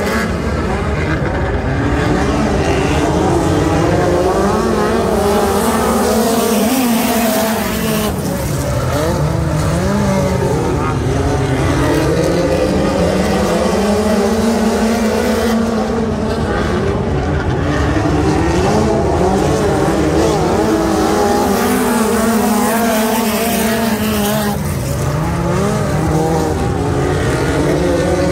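A pack of USAC midget race cars running at racing speed. Their engines swell and rise in pitch, then fall back, about every eight seconds as the field laps the track.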